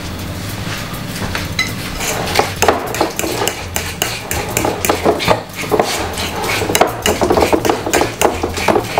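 A fork mashing ripe bananas in a bowl: quick, irregular clinks and scrapes of the fork against the bowl, starting about two seconds in.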